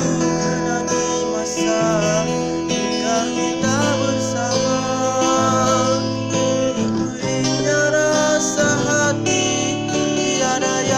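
Acoustic guitar music without sung words: strummed chords under a melody line that slides between notes.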